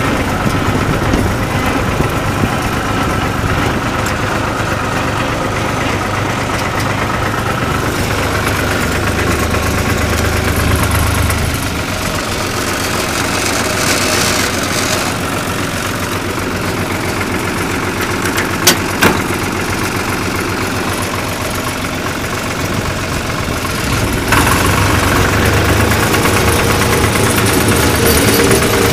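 1974 Long 350 diesel tractor engine running steadily while the tractor is driven. Its note drops a little about a third of the way through and picks up again near the end, with two sharp clacks a little past the middle.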